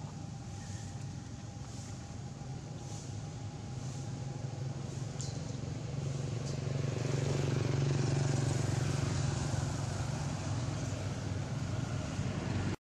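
A motor vehicle's engine running, a low steady hum that swells to its loudest about eight seconds in and then eases off as it passes.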